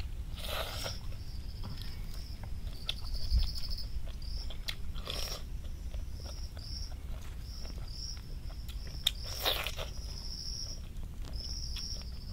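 Ripe cashew apples being bitten into and chewed, with a few short wet bites spread through. Insects chirp in short repeated trills throughout.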